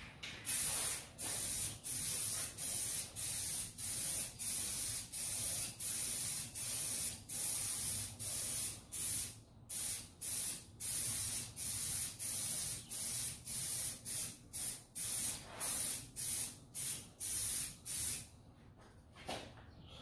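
Aerosol can of white spray paint hissing in many short bursts, a little more than one a second, as the flag's stars are sprayed on. The bursts stop about two seconds before the end.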